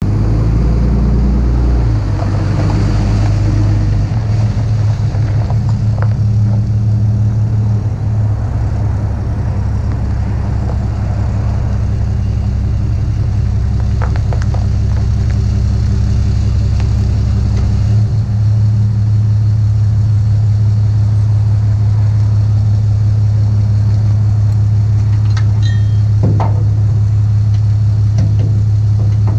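Diesel engine of a Cat 279D compact track loader running steadily under work. Its note shifts around two seconds in and again about eighteen seconds in, with a few short clanks near the middle and near the end.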